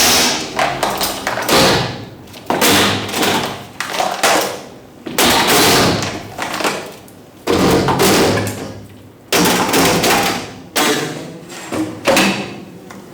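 A series of strikes on an object, about nine loud hits roughly one to two seconds apart, each dying away with a ring, with lighter taps between them.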